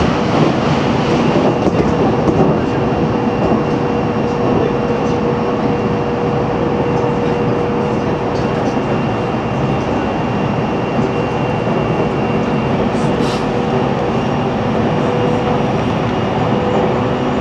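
JR Central 313 series electric train running at a steady speed, heard from its leading motor car: an even rolling noise with a steady traction-motor whine.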